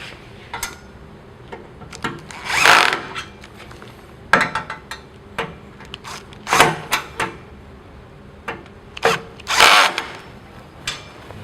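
Cordless power screwdriver set to 15 torque driving in the front-plate screws in three short runs, about a second each, with light clicks and taps of metal between them.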